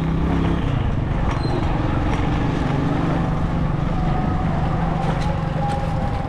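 Motorcycle engine running steadily as the bike rides along, its low note changing slightly about a second in, with road and wind noise.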